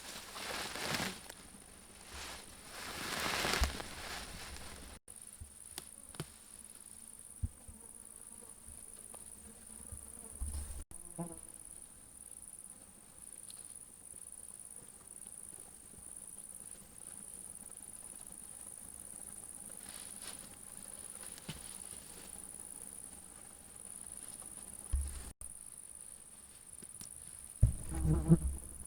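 Steady, high-pitched chirring of field insects, with a fly buzzing close by about ten seconds in and again louder near the end. A couple of soft rustling swishes come in the first few seconds.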